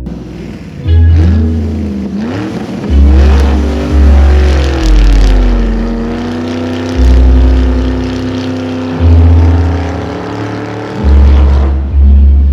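Music with a heavy, evenly pulsing bass, overlaid by a car-engine revving sound that rises and falls in pitch during the first few seconds, then holds a steady drone.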